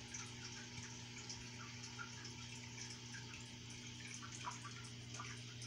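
Faint water in an aquarium tank trickling and dripping, with many small irregular drips over a steady low hum.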